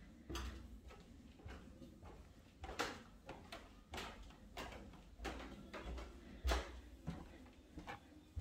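Footsteps going down an open wooden staircase, a steady series of soft thuds with sharper taps, about one step every half to two-thirds of a second.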